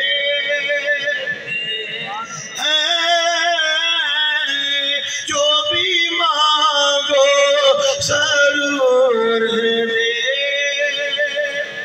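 A man singing a devotional refrain in long, drawn-out notes with wavering ornaments, pausing briefly for breath about two seconds in.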